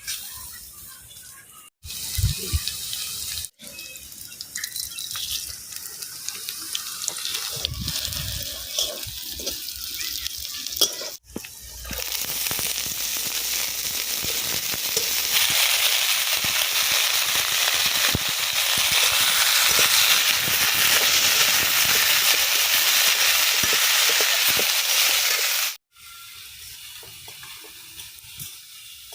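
Food frying in hot oil in a cooking pan: a loud, steady sizzle through the longest clip, with spoon stirring and knocks in the shorter clips before it. The sound stops abruptly several times at edit cuts.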